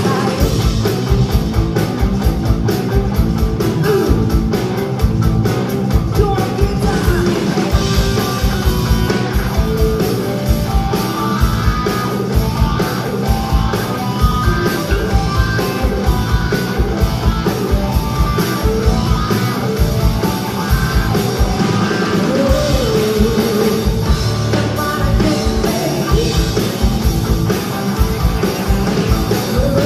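Live rock band playing, with drum kit, electric guitars, bass and keyboard under a woman's sung vocal and a steady drum beat.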